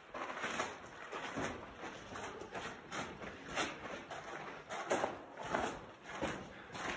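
Footsteps walking over a sandy, gritty canyon floor at a steady pace of about two steps a second.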